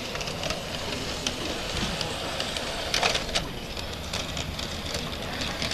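G-scale model train running along its track: a steady rushing noise with scattered sharp clicks, the loudest cluster about three seconds in.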